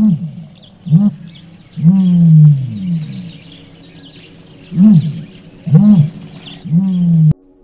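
Ostrich calling: a series of about seven deep, low calls, each bending up and down in pitch, most of them short and two drawn out for over half a second.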